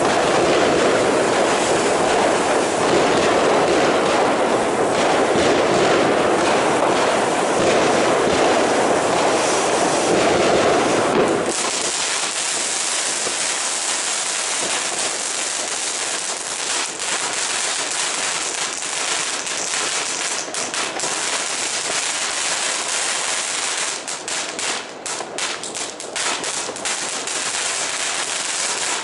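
Ground firework fountain spraying sparks with a loud, steady hiss. About eleven seconds in, the deeper part of the hiss cuts off suddenly and a thinner hiss goes on, with crackling stars popping in quick clusters, thickest near the end.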